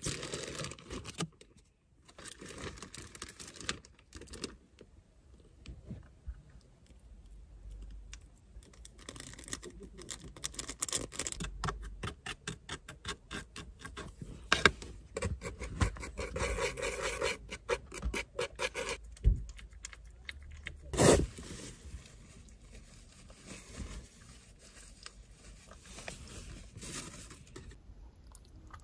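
Small handling sounds: plastic packaging rustling, then a plastic spoon stirring and scraping on a plastic plate in a quick run of light taps, with one loud knock about 21 seconds in and softer scratching after.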